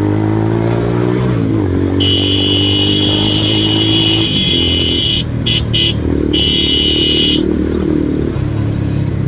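Motorcycle engine and wind noise picked up by a phone's built-in microphone while riding. The engine note climbs, drops at a gear change about a second and a half in, then climbs again. A high steady tone sounds over it for about five seconds from about two seconds in, broken twice briefly.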